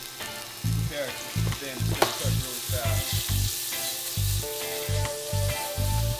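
Thin strips of steak sizzling and being stirred in a very hot wok of sesame oil, with a sharp clink about two seconds in. Background music with a steady low beat runs underneath.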